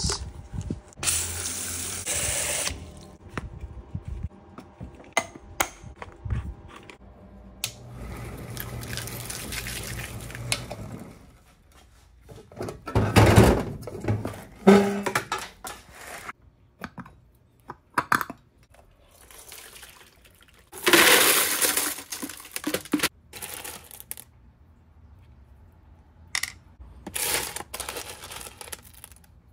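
Ceramic tumbling media rattling and clattering together with small cut metal pieces in a rotary tumbler's rubber jar and in a tray: several separate rushing, gravelly bursts with quieter gaps between, the sound of the pieces having their edges softened and being sifted out.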